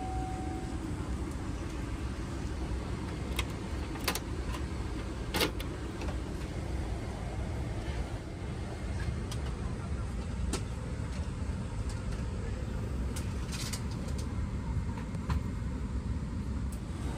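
Steady low cabin rumble with a few sharp clicks and knocks; the loudest knock comes about five seconds in.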